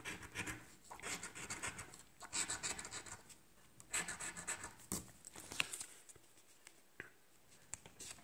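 A coin scraping the latex coating off a scratch-off lottery ticket, in short bursts of quick rasping strokes with brief pauses between them, growing sparser near the end.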